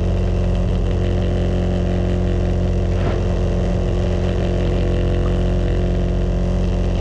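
Marine trawler's diesel engine running steadily at a constant pitch, heard on board.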